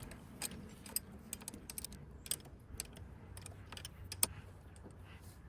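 Faint, irregular metallic clicks and ticks of a wrench working a bolt on an outboard's shift linkage, with one sharper click about four seconds in.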